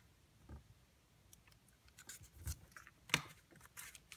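Hard plastic trading-card holder being handled: a few light clicks and rubs, the sharpest click about three seconds in.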